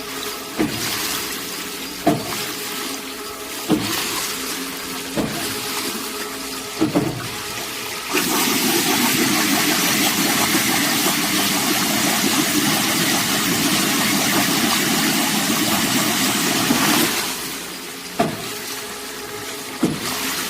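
Loach deboning machine, which separates the flesh from the bones, running, with a sharp knock about every one and a half seconds. For about nine seconds in the middle a louder, steady rushing noise takes over, then the knocking returns.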